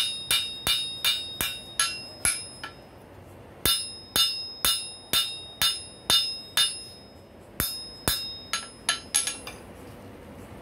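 Blacksmith's hand hammer striking a hot rail spike on an anvil: ringing blows about two to three a second, with two short pauses, stopping about a second before the end.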